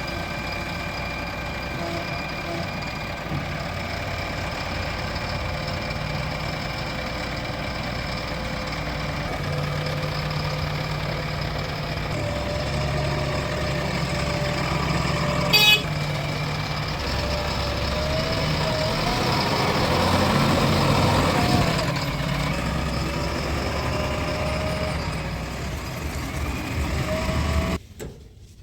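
Diesel engines of a JCB 3DX backhoe loader and tractors running steadily, with a single sharp clank about halfway through and a wavering tone over the engine noise a little later. The sound cuts off suddenly near the end.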